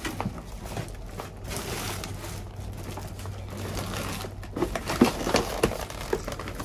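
Plastic garbage bags and food packaging rustling and crinkling as someone rummages through a dumpster of discarded produce, with scattered small knocks and crackles that get busier about two-thirds of the way through, over a steady low hum.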